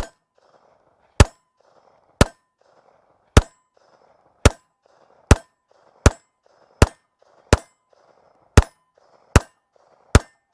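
Walther PPQ M2 Q4 TAC 9mm pistol firing 124-grain ball ammunition in slow, steady fire: about a dozen loud shots, roughly one a second.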